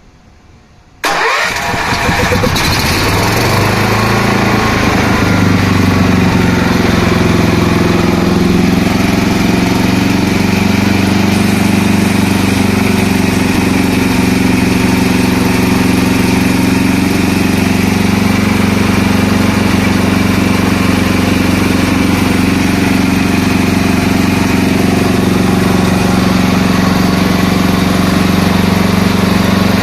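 A motor starts suddenly about a second in, rising in pitch as it comes up to speed, then runs steadily.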